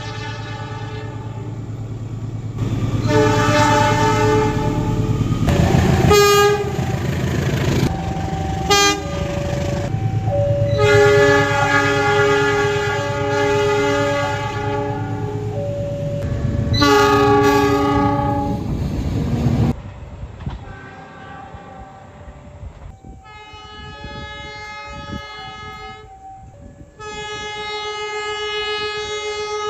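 Indonesian diesel locomotive horns sounding the semboyan 35 signal: a series of chord-like horn blasts, some long and some short, over the rumble of a train. About twenty seconds in the sound cuts to a quieter recording with more horn blasts.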